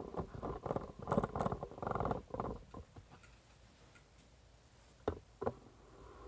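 Handling noise from a phone camera being turned: irregular rustling and scraping for the first two and a half seconds, then two sharp clicks about half a second apart near the end.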